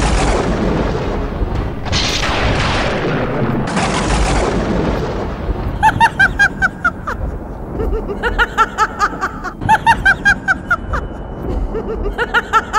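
Added dramatic sound effects: three booming whooshes that start sharply and die away, over the first five seconds. Then, from about six seconds in, several runs of quick, high repeated notes.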